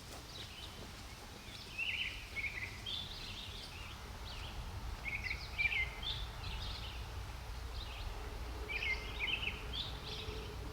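Songbirds singing in short chirping phrases, repeated every second or two, over a steady low rumble.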